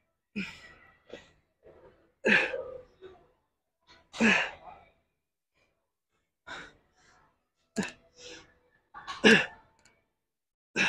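A man's hard exhales, roughly one every two seconds, some pushed out as short falling grunts, with the effort of reps on a back-training machine. A few sharp clicks come in near the end.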